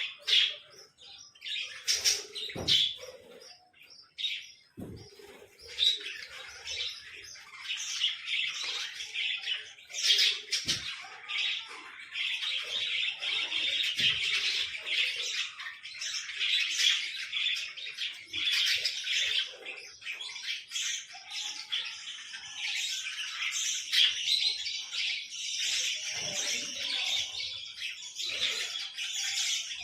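Small birds chirping and chattering in quick high calls, scattered at first and nearly continuous from about twelve seconds in, with a few brief soft knocks.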